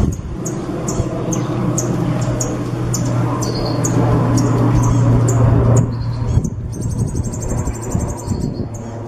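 A songbird singing sharp, high chirps repeated about twice a second, then a long, fast, high trill a little past halfway. A steady low hum and background noise run beneath until about six and a half seconds in.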